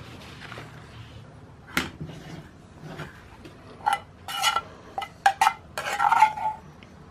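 Metal utensil clinking and scraping against a frying pan as capers and their juice are spooned from it onto a plate: one sharp clink about two seconds in, then a quick run of ringing clinks and scrapes in the last few seconds.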